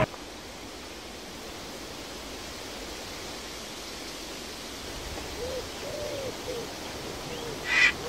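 Woodland ambience: a steady soft hiss, with a few faint hooting calls about five to six and a half seconds in and one short, sharper call near the end.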